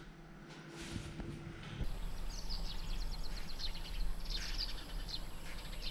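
Birds chirping outdoors in quick phrases of short high notes, repeated several times over a low steady rumble. For the first two seconds only quiet indoor room tone with a faint hum is heard.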